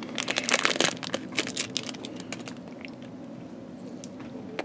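Clear plastic wrapper crinkling as it is peeled back from a soft coconut candy bar, dense crackling that dies away about two and a half seconds in, followed by a quiet bite and chewing of the soft candy.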